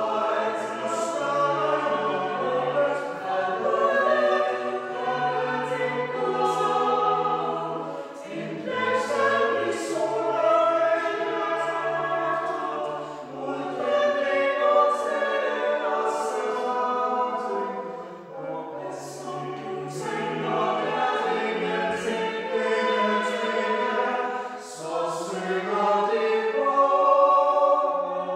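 Small mixed choir of six voices singing a cappella in four-part (SATB) harmony, in sustained phrases with short breaks between them.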